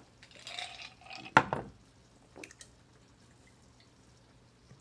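Drinking from a glass: a wet gulping, sloshing noise in the first second, then a single sharp clink of glass on a hard surface about a second and a half in, and a few faint clicks after.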